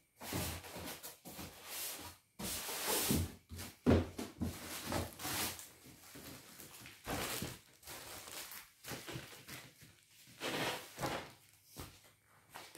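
Unpacking noise: a styrofoam packing block and a plastic-wrapped package handled and pulled out of a cardboard shipping box, with irregular rustling, scraping and a few knocks.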